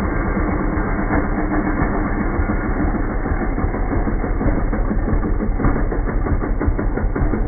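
Gas chainsaw running, loud and continuous, with a rapid rattle that grows in the second half.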